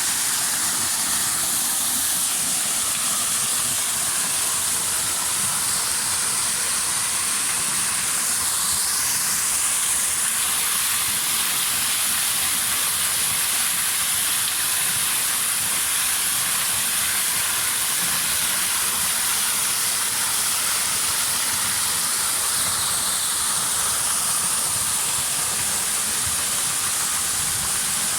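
Waterfall: a steady rush of falling water, a constant hiss.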